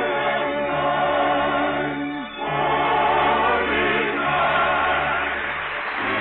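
A choir sings with musical accompaniment, heard with the thin, muffled sound of an old 1930s radio broadcast recording. A brief break comes a little over two seconds in, then the singing goes on.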